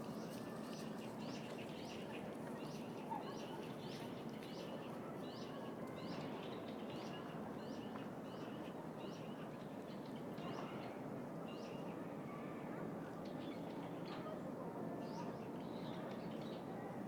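A small bird chirps a short, falling call over and over, about twice a second, and the calls thin out after about ten seconds. Under it runs the steady hum of distant city traffic.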